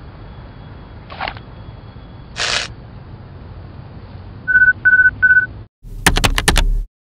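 Three short, identical electronic beeps about half a second apart, a bomb-timer sound effect, over a steady hiss that carries two brief noise bursts earlier on. After a short break, about a second of rapid clicking over a low rumble, which cuts off suddenly.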